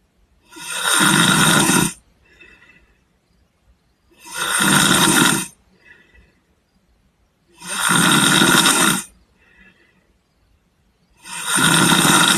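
A person snoring loudly and rhythmically. Four long, rough snores come about three and a half seconds apart, each followed by a much softer, shorter breath.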